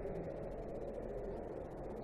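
Steady low background noise, with no distinct shots, clicks or voices.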